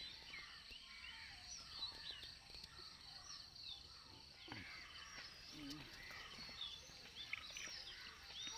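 Many small birds chirping and calling at once: a faint, continuous chorus of short rising and falling notes.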